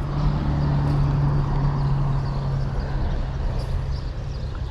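Spinning reel being cranked on a retrieve: a steady whir at a constant pitch that fades near the end.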